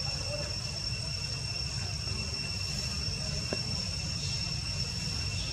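Steady high-pitched insect drone, like crickets or cicadas, over a low rumble, with a single faint click about three and a half seconds in.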